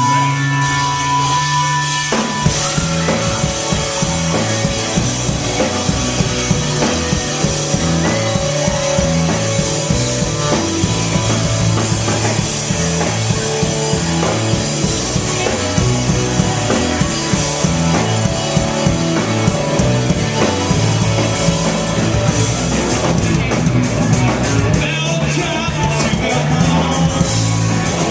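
Rock band playing live with drum kit and electric guitars; after a couple of seconds of held notes the full band comes in hard and keeps driving.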